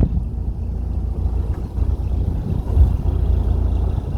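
Low rumble aboard a narrowboat under way, its level wavering.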